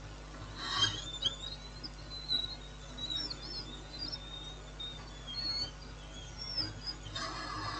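Faint, high, wavering chirps, preceded by a brief scratchy noise just under a second in. Near the end a louder, steady, high-pitched whine begins.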